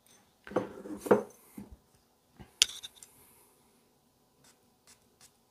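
Handling rustles, then a single press of a perfume atomizer about two and a half seconds in. The pump gives a sharp click and a hiss of mist lasting about a second as Jo Malone Nectarine Blossom & Honey cologne is sprayed onto a paper blotter strip. A few faint taps follow.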